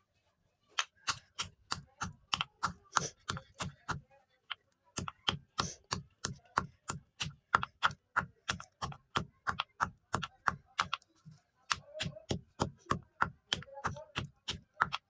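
Chalk being crushed in a rapid series of crisp crunches, about three or four a second, with a short pause about four seconds in.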